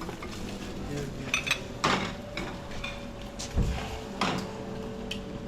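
Dishes and cutlery clinking, with scattered knocks and a low thump about three and a half seconds in, over faint background chatter.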